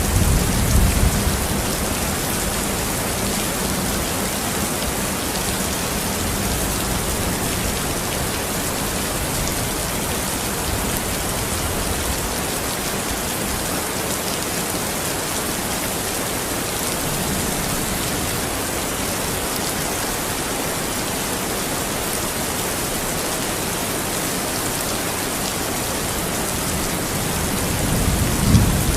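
Steady heavy rain falling. A low rumble of thunder dies away in the first second or so, and another rumble of thunder builds near the end.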